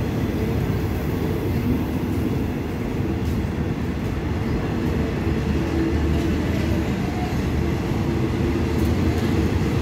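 Diesel passenger train standing at the platform with its engines idling, a steady low rumble.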